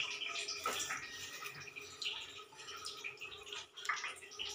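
A few light clicks and knocks of steel kitchen utensils over the faint steady hiss of a lit gas stove burner.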